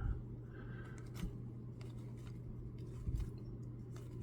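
Light handling of a foil trading card pack and its cards: a few soft clicks and rustles over a steady low hum.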